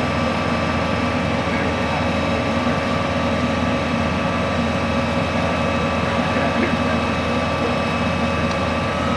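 TMG 174 drill rig running steadily while drilling: a constant engine and hydraulic drone with several steady whining tones over it.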